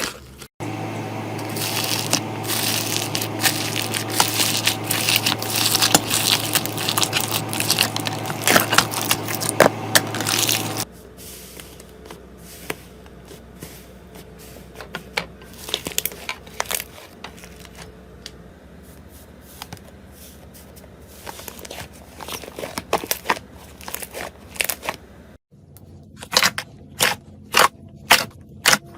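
Hands squeezing and stretching crunchy slime: dense crackling and crinkling for about ten seconds, then softer scattered crackles, and near the end a run of sharp pops, a few a second.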